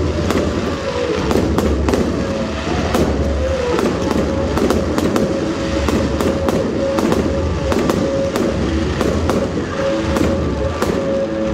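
Aerial fireworks launching and bursting one after another, a dense run of sharp bangs and crackles, with music playing underneath.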